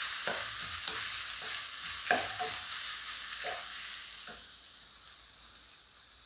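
Wooden spatula stirring crushed coconut masala in a nonstick wok of hot oil, scraping and tapping the pan about once or twice a second over a steady sizzle. The stirring stops about four seconds in, and the sizzle fades.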